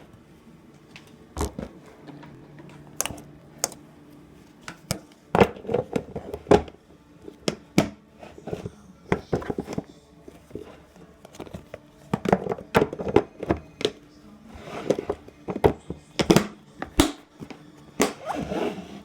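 Slime being squished and poked by hand, making irregular sharp clicks and short wet pops.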